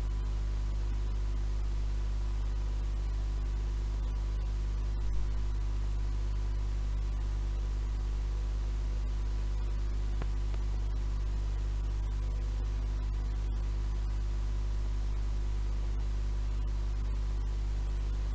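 Steady tape hiss over a low mains hum with its overtones, from an unrecorded stretch of an old reel-to-reel tape being played back.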